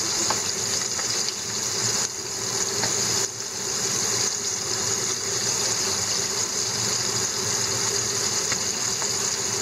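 Butterflied horse mackerel deep-frying in a pan of hot oil: a steady sizzle, with a few faint ticks as metal tongs touch the pan.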